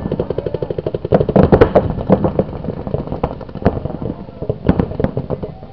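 Paintball markers firing: rapid strings of sharp pops, many shots a second, for the first couple of seconds, then scattered single shots.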